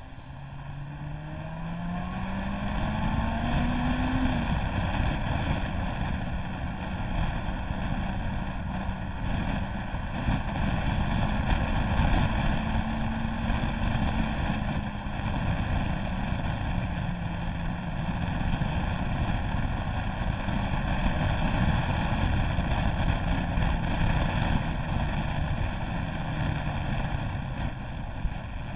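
Motorcycle engine pulling away and accelerating, its pitch rising over the first few seconds, then running at fairly steady road speed with small rises and falls in revs. Heavy wind rush on the microphone covers it throughout.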